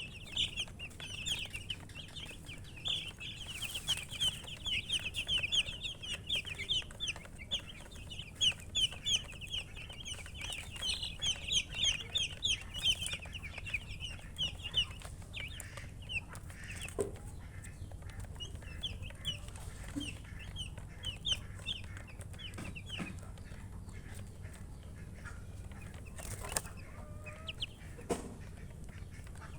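Baby chicks chirping: a dense chorus of quick, high peeping calls that thins out to scattered peeps about halfway through, with a few sharp knocks near the end.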